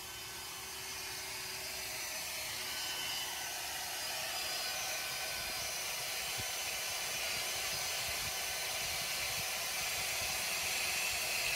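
Cordless drill running steadily, its 3/16-inch bit cutting down through a bolt broken off in an engine head.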